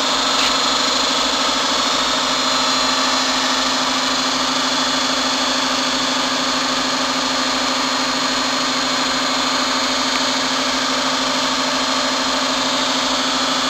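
Hydraulic pump of a semi-automatic rubber vulcanizing press running with a steady hum and a constant low tone while the press closes its platens.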